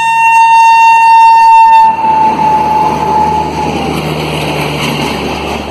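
WAP-5 electric locomotive's air horn holding one long note, cut off about two seconds in. A fading trail of its tone dips slightly in pitch as the rushing rumble of the passing train takes over.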